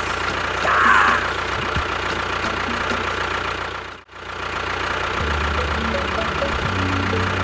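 Engine idling steadily, with a brief dropout about four seconds in. A deeper, pulsing engine rumble joins about a second later.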